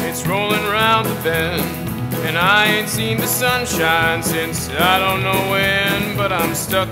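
Country-bluegrass band music: a lead line sliding up and down in pitch over a steady strummed and bowed accompaniment.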